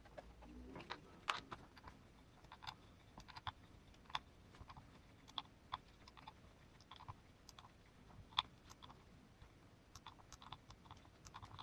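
Faint, irregular clicks and taps of a hex driver and small screws as the bolts clamping an RC crawler tire onto its wheel are tightened.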